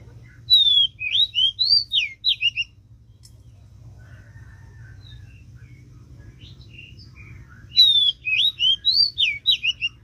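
Oriental magpie-robin (kacer) song: two matching phrases of quick, clear whistled notes sliding up and down, about seven seconds apart, with faint bird calls in the gap.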